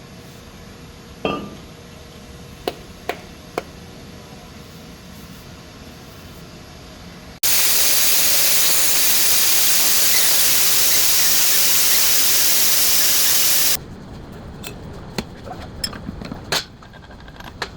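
Metal tools clinking and knocking on brake parts, a few sharp strikes at a time. In the middle comes a loud steady hiss, about six seconds long, that starts and stops abruptly.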